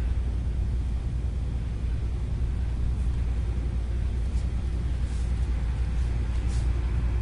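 Steady low background rumble with a few faint, brief hisses.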